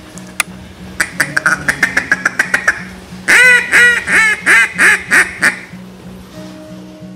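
Wooden duck call blown by mouth: a fast run of about a dozen short, clipped notes, then about six loud, drawn-out quacks. Background music with a steady beat plays underneath.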